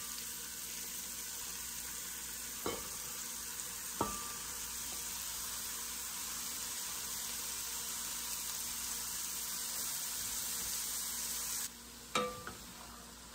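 Diced onion, carrot and celery sizzling steadily in melted butter in an enamelled cast-iron Dutch oven as they are tipped in from a plate, with two sharp knocks against the pot in the first few seconds. Near the end the sizzle drops in level and a wooden spoon knocks against the pot as stirring begins.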